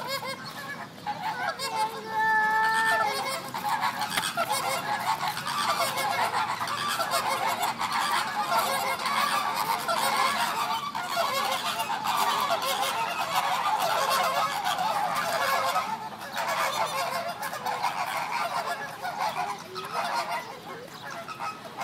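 A flock of flamingos honking, many goose-like calls overlapping into a continuous din that eases briefly a couple of times near the end.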